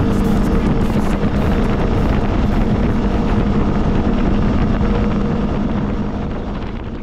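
CFMoto CForce 625 ATV's single-cylinder engine running at road speed, with wind rushing over the microphone. The sound fades out near the end.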